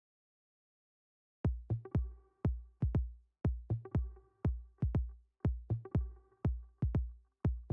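Silence, then electronic background music with a steady, heavy kick-drum beat starting about a second and a half in.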